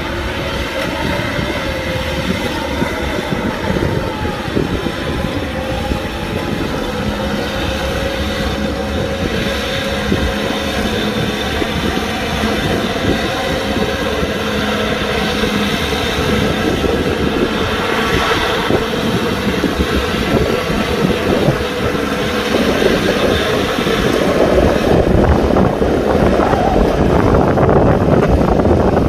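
Kubota tractor's diesel engine running steadily under load while plowing, growing somewhat louder near the end.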